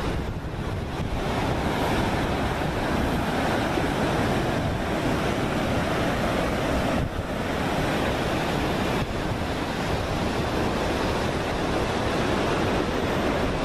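Steady noise of ocean surf, with wind rushing over the microphone.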